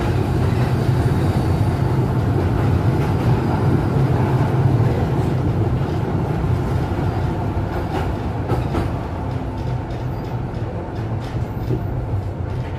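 A 1960 Duewag GT8 tram running along the track, heard from inside the car: a steady low rumble from the wheels and running gear. A few light clicks and rattles come in over the second half as the rumble eases off a little.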